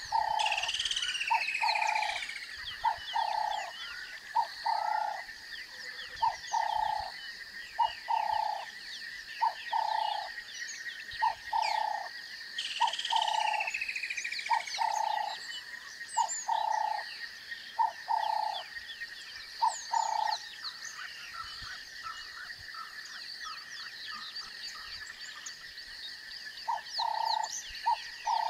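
Frogs calling in a steady series of short, mid-pitched calls, about one a second, stopping for several seconds near the end and then starting again. A steady high drone and scattered bird chirps run behind them.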